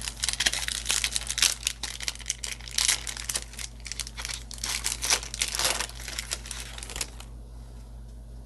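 A trading-card booster pack's wrapper being torn open and crinkled by hand, a dense crackling that stops about seven seconds in.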